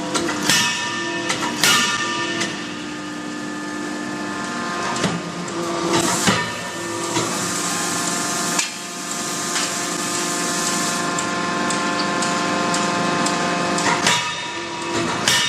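Hydraulic die forging hammer striking several heavy blows at uneven intervals, over a steady mechanical hum with a constant whine.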